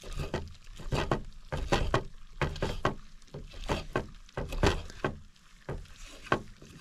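Kitchen knife slicing through a cooked steak on a wooden cutting board: a run of short, irregular cutting strokes and taps of the blade against the board, about two a second.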